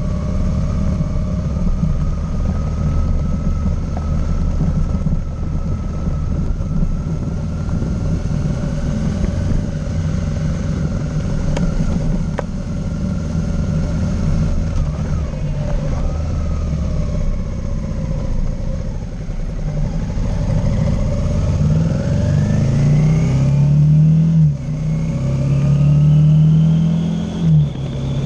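Motorcycle engine running at low speed. In the last third it speeds up: the pitch climbs, drops briefly twice a few seconds apart as gears change, and climbs again.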